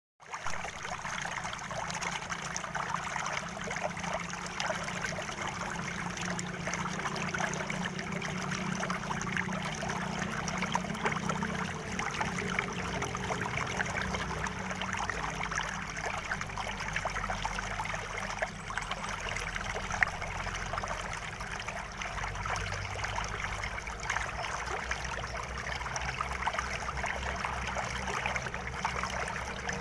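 Shallow, muddy water trickling and splashing steadily, with a dense fine crackle and one sharper click about two-thirds of the way through.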